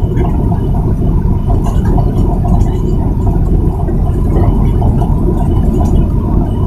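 Container truck's engine and road noise: a steady, loud low rumble while driving.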